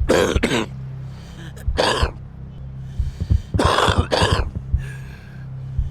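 A smoker's harsh cough in short fits: a double cough at the start, a single cough about two seconds in, and another double cough near four seconds. This is a smoker's cough, held to be a sign of damaged lungs.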